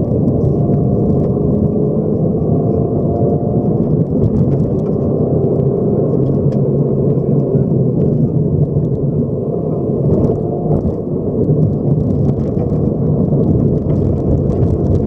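Subaru rally car's flat-four engine running hard on a gravel stage, heard from inside the cabin, with tyre and gravel noise and small stone ticks. The engine note rises and falls as the car accelerates and slows, dipping briefly near the end.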